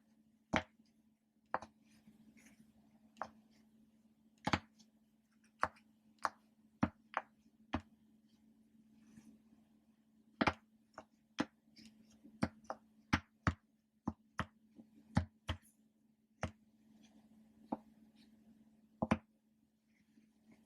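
Ocean-animal popper toys being pressed: irregular sharp pops, about one or two a second, some louder than others, over a faint steady low hum.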